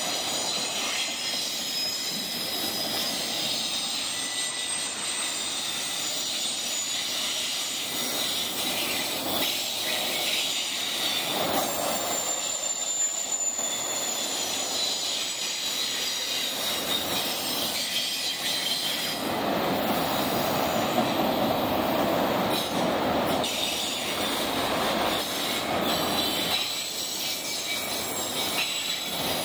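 A long string of autorack freight cars rolling past close by on a grade: a steady rumble of wheels on rail with thin, high-pitched wheel squeal over it. The rumble grows louder for a few seconds about two-thirds of the way through.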